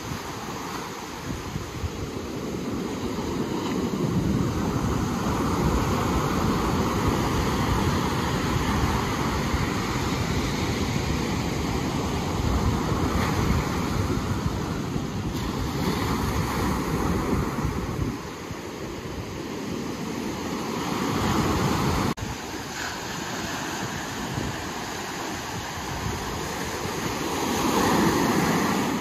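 Ocean surf washing ashore, its noise swelling and ebbing as the waves come in, with wind buffeting the microphone. The sound drops abruptly about two-thirds of the way through.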